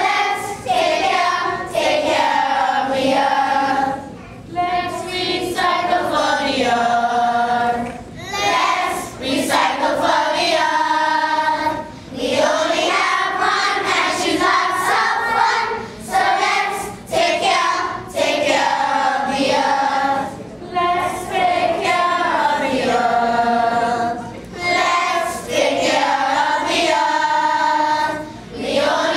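A group of children singing together as a choir, in sung phrases with short pauses between them.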